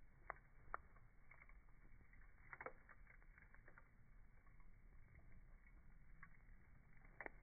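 Pine cones burning in a campfire, crackling faintly with scattered sharp pops: two louder ones in the first second, a small cluster about two and a half seconds in, and another near the end.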